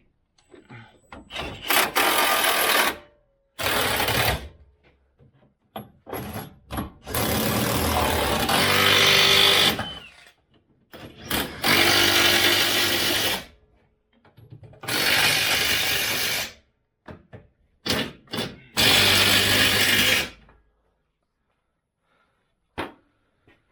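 Impact wrench run in about six bursts of one to three seconds each, with short pauses between, driving in the mounting bolts of a steering gear box.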